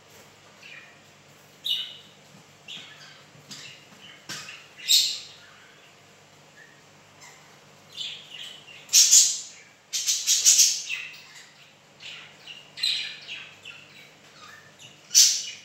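A pet bird chirping and squawking in short, sharp calls, sparse at first and then in a loud cluster around the middle and again near the end, over a faint steady hum.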